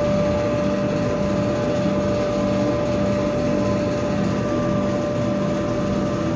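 Laser engraver running a raster engraving job: a steady whine and hum from the machine, with the head's drive motors whirring in a regular on-off rhythm as it sweeps back and forth across the wood.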